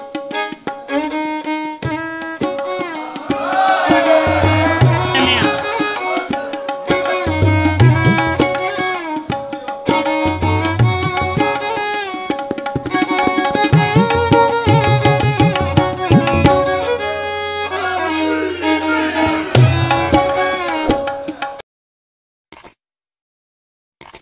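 Instrumental background music with tabla-like drums and a violin-like melody. It cuts off sharply about 21 seconds in, leaving near silence.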